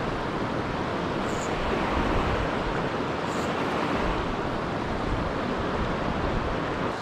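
Steady rushing of a shallow mountain river flowing over a stony riffle.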